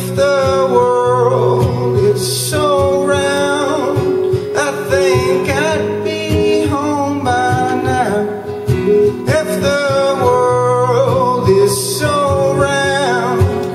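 A man singing to his own acoustic guitar accompaniment, in phrases with short breaks between lines while the chords keep ringing underneath.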